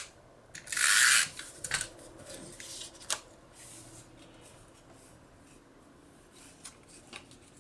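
Snail adhesive tape runner drawn along a strip of paper: one stroke of under a second, starting about half a second in, just after another stroke ends. Then a few faint clicks and paper handling.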